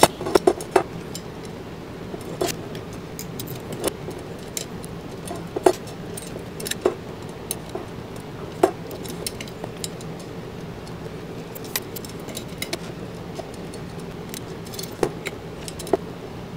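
Metal spokes clicking and ticking against each other, the hub and the rim as they are threaded through while lacing a BMX wheel. The clicks are sharp, light and irregular, a few every second or two.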